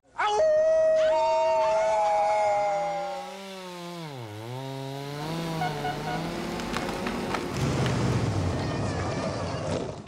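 A man's long, drawn-out holler through cupped hands, held high and steady for a couple of seconds, then dropping and wavering in pitch. A chainsaw runs through the second half.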